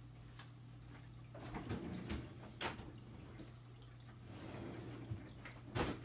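Steady low hum of running aquarium powerheads and pumps with faint water trickling and dripping, broken by scattered soft clicks and rustles of handling. A short thump near the end is the loudest sound.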